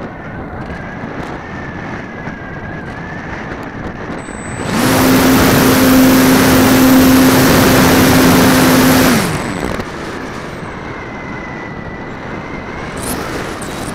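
RC model airplane's motor and propeller heard from an onboard camera, opened up to full throttle for takeoff about five seconds in: a loud drone that rises quickly in pitch and then holds steady. It is throttled back after about four and a half seconds, leaving a steady rush of air.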